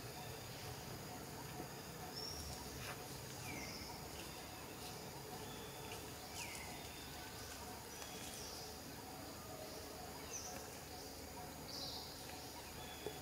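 Forest ambience: a steady faint hiss with insect buzz, and a handful of short, high-pitched animal chirps scattered through, several of them sliding down in pitch.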